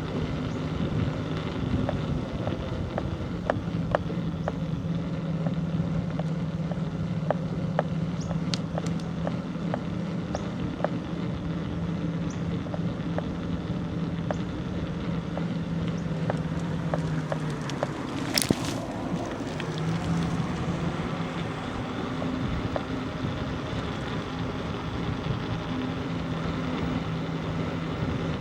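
Riding a bicycle along a road: a steady low hum with light ticks about twice a second, and one brief sharp hiss about two-thirds of the way through.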